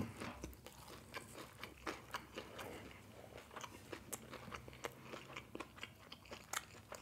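Close-miked chewing of crispy fried chicken: a person's mouth working through the breading, with frequent small crunches and wet mouth clicks several times a second.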